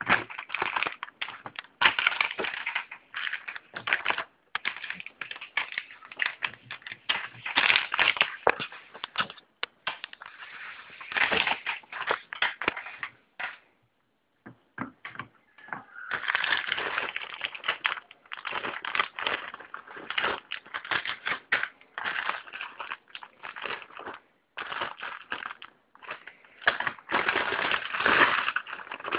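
Plastic bags of Lego Technic pieces being handled and crinkled, with a dense run of irregular crackles and clicks from the plastic and the loose pieces shifting inside. It stops for a couple of seconds about halfway, then picks up again.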